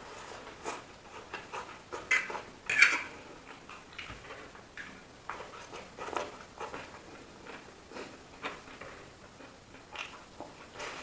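Close-up eating sounds: a person chewing food with wet mouth noises, irregular, with louder smacks about two and three seconds in.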